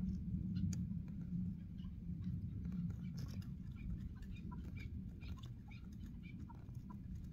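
Short, scattered chirps and clicks of birds calling, over a steady low rumble.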